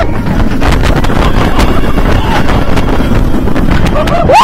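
Loud wind rushing over the microphone of a B&M hyper coaster train at speed. Riders' screams start to rise right at the end as the train crests a hill.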